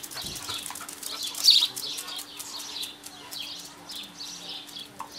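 Small birds chirping, short high calls repeating again and again, with one louder chirp about a second and a half in.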